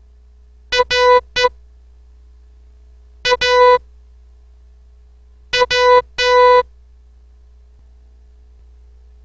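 Morse code practice tones, buzzy electronic beeps sent as three separate characters: short-long-short about a second in, short-long about three seconds in, and short-long-long about five and a half seconds in. A faint steady hum lies underneath.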